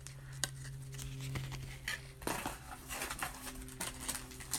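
Hands handling a small paper-tagged ornament and rummaging in a cardboard box: light rustles, scrapes and clicks scattered throughout, busiest about two seconds in.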